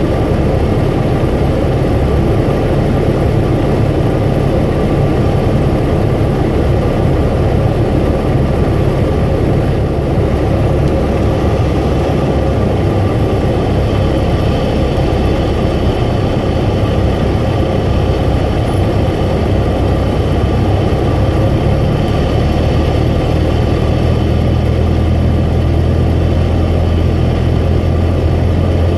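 Small single-engine piston airplane's engine and propeller running steadily, heard from inside the cabin. The engine note changes about two-thirds of the way through.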